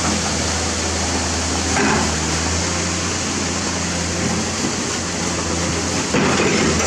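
Heavy diesel machinery running steadily: a low engine hum under a constant wash of noise, changing slightly a few seconds in and getting louder near the end.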